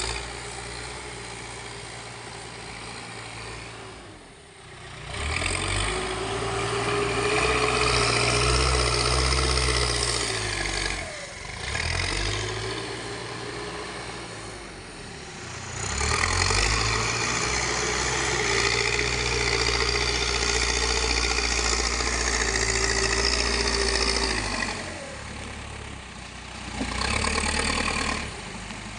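Backhoe loader's diesel engine revving up under load and dropping back toward idle several times, with two long pushes of about five and eight seconds.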